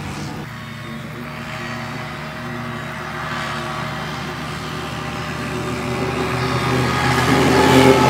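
M113 armoured tracked vehicle's diesel engine running as it drives along the track, growing louder over the last couple of seconds as it approaches.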